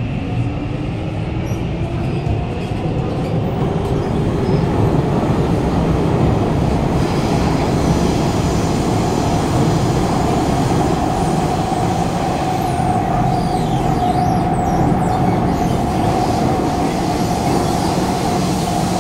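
Kawasaki C151 metro train's permanent-magnet synchronous traction motors whining as the train accelerates, heard inside the carriage. The whine rises steadily in pitch, then levels off to a steady tone about ten seconds in, over a constant low rumble of wheels on track.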